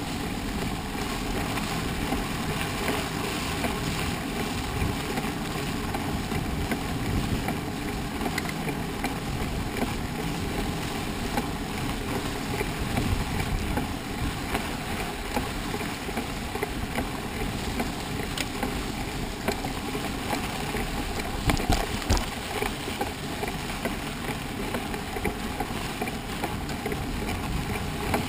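Steady noise of a mountain bike being ridden over a trail, with small rattles throughout and a few sharper knocks about 21 seconds in.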